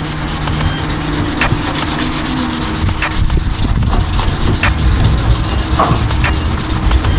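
Worn sandpaper rubbed by hand over primer on a car's body panel edges: a steady rasping scrub, with a sharper stroke every second or so.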